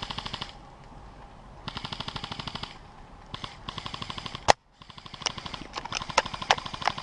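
Airsoft guns firing rapid full-auto bursts: three short bursts, then one loud sharp crack about four and a half seconds in, followed by more rapid fire and several single sharp snaps.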